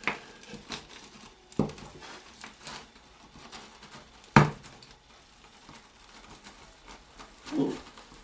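A screwdriver prying at glued neodymium magnets in a ceiling fan's rotor: scattered light clicks and scrapes of metal and plastic, with one sharper click about four and a half seconds in.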